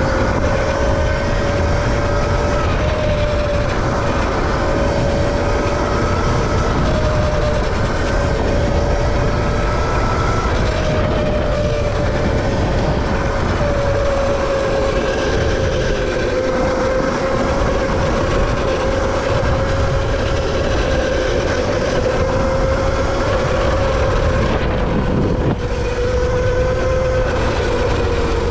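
Valtinsu EM5 Pro electric mini dirt bike's motor whining steadily while riding, its pitch drifting slightly with speed, over a heavy low rumble of wind and ground noise.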